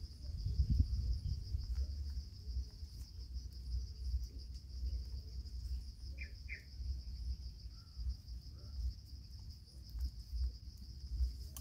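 Steady high-pitched trill of insects over a low rumble, with two short high chirps about six seconds in.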